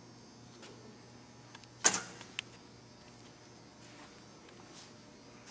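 Stainless-steel control-panel enclosure door shut with a single sharp metallic clack about two seconds in, followed by a smaller click. A faint steady hum runs underneath.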